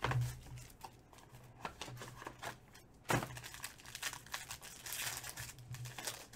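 Foil trading-card pack being torn open and crinkled by hand: irregular crackling, with a sharp crackle at the start and another about three seconds in.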